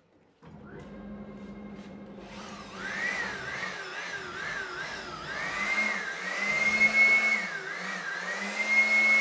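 Electric cleaning motor of the vacuum or blower kind starting up and running, used to clear sawdust off a CNC-carved wooden board. A low hum comes in first, then rushing air joins about two seconds in, with a whine that wavers up and down in pitch.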